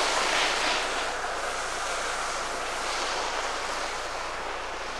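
Steady rushing hiss of downhill skiing, with skis sliding over packed snow and wind across the camcorder microphone. It is loudest at first and slowly fades.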